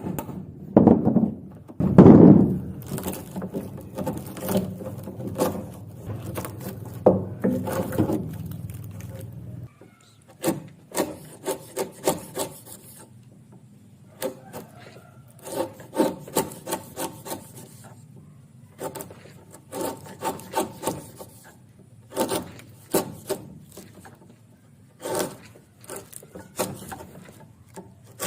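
A hand tool scraping and rubbing wood in repeated strokes, in runs of several strokes with short pauses between. A steady low hum runs under the strokes for the first ten seconds or so, then stops.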